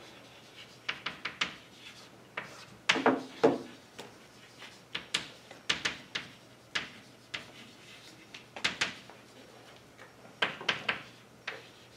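Chalk writing on a blackboard: irregular sharp taps and short scratches of the chalk, coming in quick clusters with brief pauses between words.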